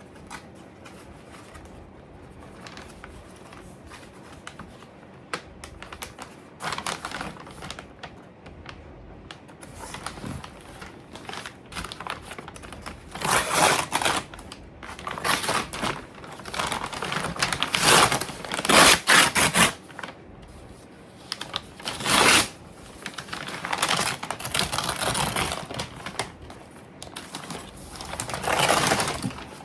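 A toolbox's packaging being opened by hand: irregular bursts of rustling, tearing and scraping with small clicks. Faint at first, with louder bursts from about the middle on.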